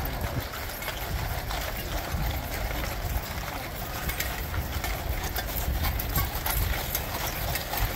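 Cavalry horses walking past on gravel, many hooves clopping in an irregular patter of clicks over a steady low rumble.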